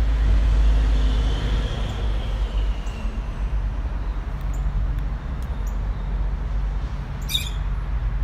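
Steady low outdoor rumble, with a short high chirp near the end.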